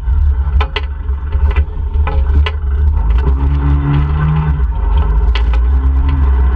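ATV engine running under a heavy low rumble, its note rising into steady stretches with the throttle and dropping back, with sharp knocks and rattles scattered throughout.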